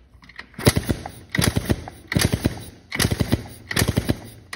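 Yamaha Blaster's single-cylinder two-stroke engine being kick-started over and over, in about five bursts of sharp clatter roughly three-quarters of a second apart, turning over without firing because it has no spark.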